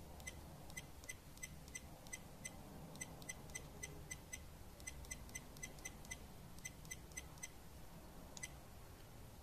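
SJ4000 action camera's short, high button beeps, one with each press as its setup menu is stepped through. They come about three a second in runs of several with short pauses, and one slightly longer beep comes near the end.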